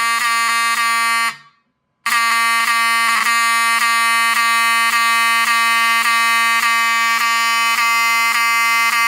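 Wheelock 7002T mechanical fire alarm horn sounding: a really loud buzzing horn tone with a regular stutter in it. It cuts off about a second and a half in, starts again half a second later and keeps sounding.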